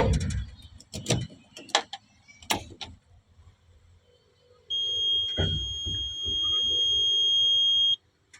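A few knocks and clicks, then an electronic warning buzzer in the cab of a Hyundai R220-9S excavator sounds one steady high tone for about three seconds and cuts off suddenly.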